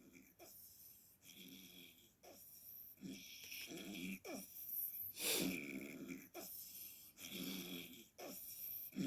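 A person snoring: short, irregular snores about once a second, each a rattling breath with a brief sound that falls in pitch, the loudest about five seconds in. The uploader finds the snoring strange.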